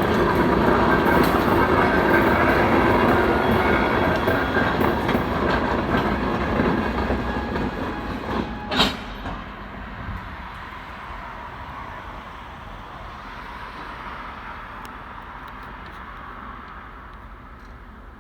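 Freight train cars rolling past on the rails. The sound is loud at first and fades off from about halfway through as the train moves away, with one sharp clank just before the fade.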